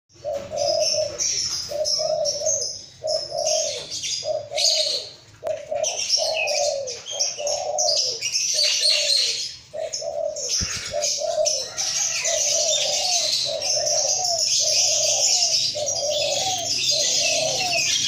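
Caged lovebirds chattering in dense, shrill high chirps, over a steady run of short low coos from another bird, about two a second.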